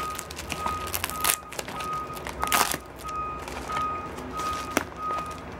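Plastic bubble mailer crinkling and crackling as its flap is pulled open by hand, in several sharp rustles, the loudest about a second and two and a half seconds in. Under it a high electronic beep repeats steadily about one and a half times a second.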